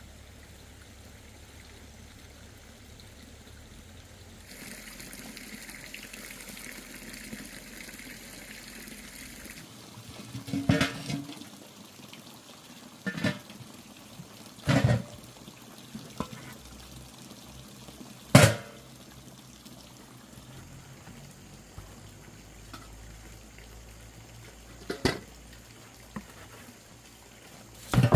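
Water pouring for about five seconds, followed by about six sharp, separate knocks spread over the rest of the time.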